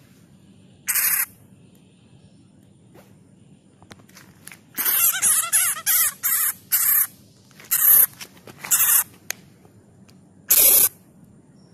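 Injured bat on the ground giving harsh, high-pitched distress screeches in short calls, after being caught and bitten by a cat. There are about ten calls: one about a second in, a rapid run from about five to nine seconds in, and a last one near the end.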